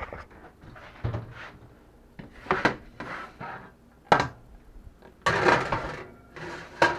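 Metal baking sheet clattering as it is lifted off a glass-top stove, then the oven door opening with a sharp knock and the sheet scraping onto the oven rack about five seconds in.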